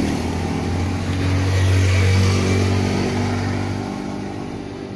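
A motorcycle engine running steadily, louder about two seconds in and then fading out near the end.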